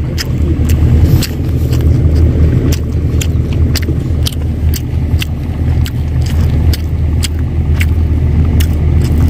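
Steady low engine rumble from an idling motor, with scattered sharp clicks over it.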